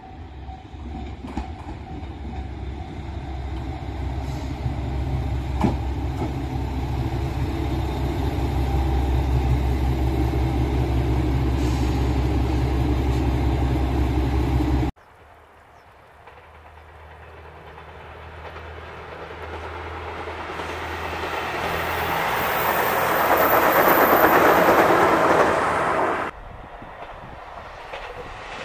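Diesel express railcar running into a station, its engine rumble growing steadily louder. Halfway through the sound cuts sharply to another train approaching, its engine and wheel noise rising to a peak before stopping abruptly a couple of seconds before the end.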